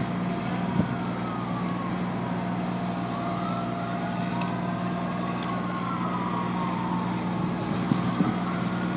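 Several fire engine sirens wailing, their slow rising and falling tones overlapping, over the steady drone of a fire truck's engine running at the scene. There are a couple of brief knocks near the start and near the end.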